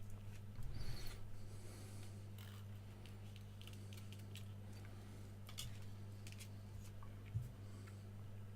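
Faint clicks, light scrapes and rustles from small resistors being handled and placed on a circuit board, a few seconds apart, over a steady low electrical hum.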